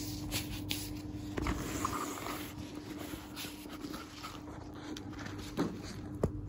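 Bar Keepers Friend cleaning powder shaken from its shaker canister onto a quartz worktop in a run of soft, uneven puffs and rattles. Near the end the canister knocks twice as it is set down on the worktop.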